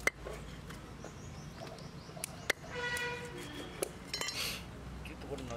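Light clinks and knocks of a knife and fish against a steel plate and pots while small fish are cleaned by hand, with a short high pitched tone about three seconds in.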